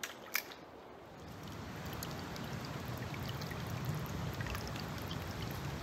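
Shallow creek water trickling and babbling over leaves, sticks and stones, coming in about a second in and growing a little. Two sharp clicks sound just before it.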